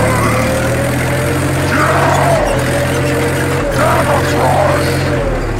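Engine running steadily, with several short rises and falls in pitch like revving; the low hum breaks off briefly twice.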